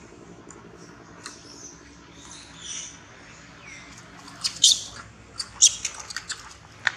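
Long-tailed macaques screaming during a chase: a few soft high squeals about two to three seconds in, then clusters of sharp, loud, very high-pitched short screams from about four and a half seconds on.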